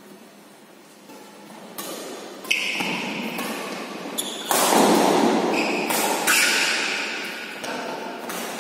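Badminton doubles rally in a large, echoing hall. Rackets strike the shuttlecock in a string of sharp, echoing hits that start about two seconds in, mixed with short high squeaks of court shoes as the players move.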